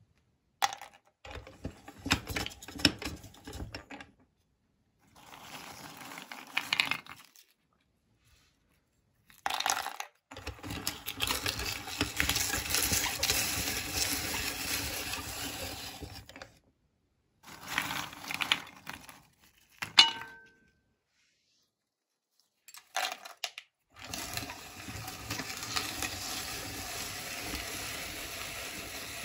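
Hand-cranked cast-metal meat grinder crunching hard biscuits, with clinks of biscuits dropping into its metal hopper. The noise comes in several separate bursts with dead silences between them, and a sharp ringing clink about twenty seconds in is the loudest sound.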